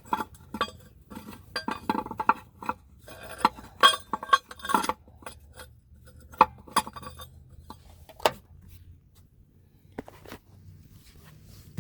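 Metal clinking and clanking from the spare-tire lowering tool and carrier hardware as the spare is worked free from under the Chevy Suburban. A quick run of knocks lasts about five seconds, then a few scattered ones follow.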